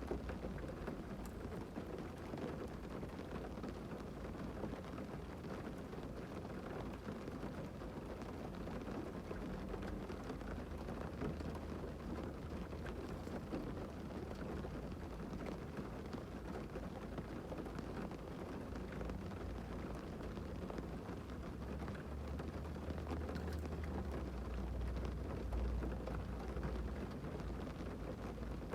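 Heavy rain drumming steadily on a car's roof and windows, heard from inside the car, with a deeper rumble swelling for a few seconds near the end.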